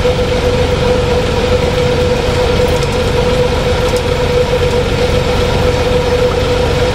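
Fishing boat's engine running steadily: a constant low rumble with a steady whining tone over it.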